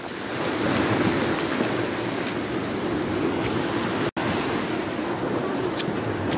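Small waves washing onto a sandy beach, a steady rush of surf, cutting out for an instant about four seconds in.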